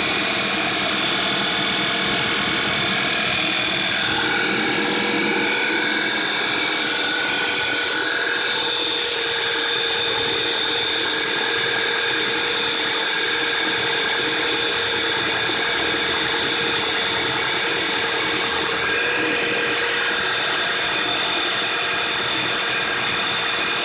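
2008 Volkswagen Passat's 2.0 TSI turbocharged four-cylinder engine running steadily with a ticking noise. The tick started only days ago; the owner rules out the belt tensioner, water pump and oil pump, and suspects the cam follower.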